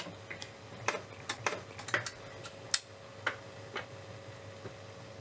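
Philips AG 1025 record changer's mechanism cycling as the tone arm is lifted and swung: a series of irregular light clicks and ticks over a faint steady motor hum. The repaired tone arm goes through the cycle without sticking.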